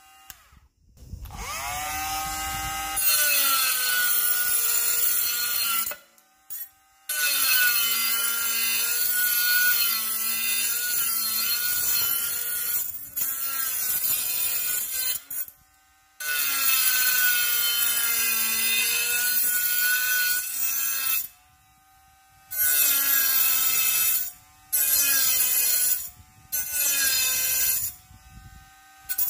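Bosch GWS 12V-76 cordless mini angle grinder run in repeated bursts, its motor whine spinning up, dipping in pitch as the disc bites into the work and rising again, with a grinding, sawing rasp over it. It stops and restarts about six times.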